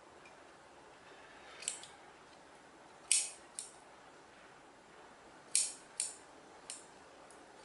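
Scissors snipping through fuzzy yarn, about seven short, sharp cuts at irregular intervals, the loudest three near the middle and toward the end.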